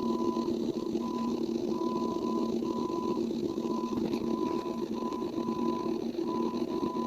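An electronic beep tone switching on and off in uneven short and long stretches, over a steady low buzzing hum.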